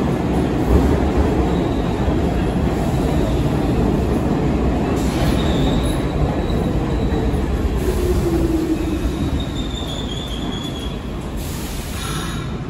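R46 subway train pulling into the station and braking to a stop: a loud steady rumble of wheels on rail that dies down as it slows. High wheel and brake squeals come in a few times in the second half, and there is a quick run of clicks near the end.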